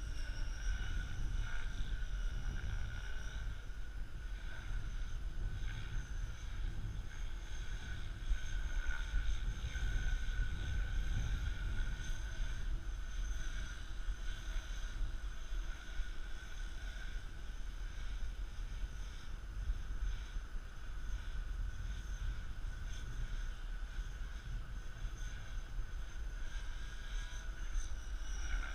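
Radio-controlled model helicopter flying overhead, its rotor and motor giving a steady high whine that wavers slightly in pitch, over the rumble of wind on the microphone.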